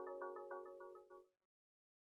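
Android ringtone melody on a Xiaomi Redmi Go phone: a quick run of repeated chiming notes over a held chord, fading out and stopping just over a second in, then silence.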